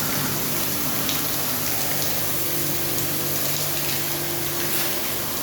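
Pressure washer spraying a steady jet of water onto an air conditioner's outdoor condenser unit, with the washer's pump humming under the hiss of the spray. The hum drops away near the end while the spray carries on.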